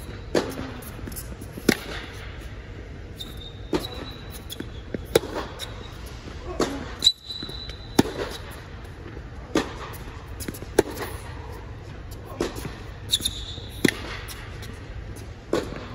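Tennis rally on an indoor hard court inside an air-supported dome: sharp pops of balls struck by rackets and bouncing, about one every one and a half seconds, with a few brief high squeaks between them.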